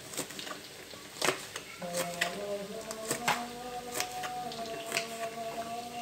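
Kitchen knife striking a plastic cutting board in irregular taps as large red chillies are sliced. Faint held tones that change pitch run underneath from about two seconds in.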